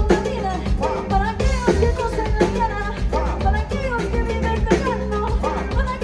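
Live band music with a singer over drum kit, guitar and a steady beat.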